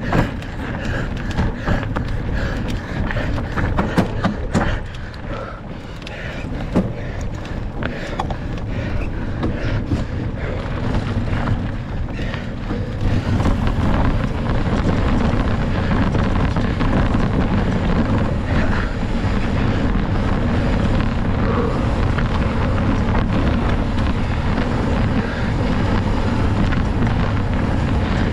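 Mountain bike ridden hard over rough trail, with the tyres crunching and the bike rattling and knocking as it goes, and wind rushing over the on-board microphone. About halfway through the rush becomes louder and steadier and the knocks thin out.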